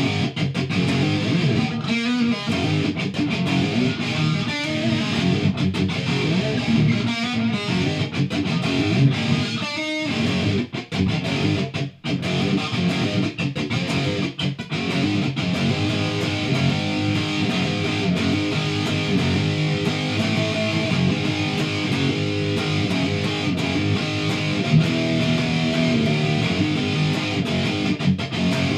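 Electric guitar playing continuously, with a couple of brief drops in level about ten and twelve seconds in.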